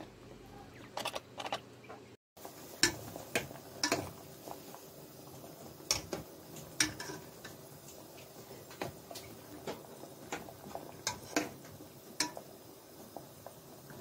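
Irregular sharp clicks and ticks of a metal spoon knocking against a metal cooking pot as chunks of potato are stirred in boiling water, over a faint steady hiss.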